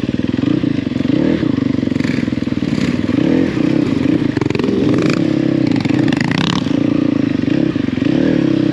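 Enduro motorcycle engine running at low road speed, its pitch wavering up and down with the throttle, with occasional clatters.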